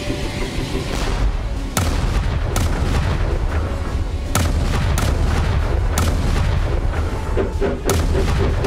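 Artillery shell explosions going off one after another, about six heavy booms starting nearly two seconds in, over a dramatic orchestral film score.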